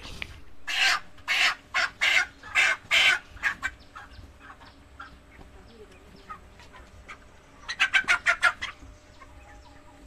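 Broiler chickens squawking: a run of loud, harsh calls about two a second, then quieter clucking, then a fast burst of squawks near the end. A bird is being held in a bag on a hanging scale to be weighed.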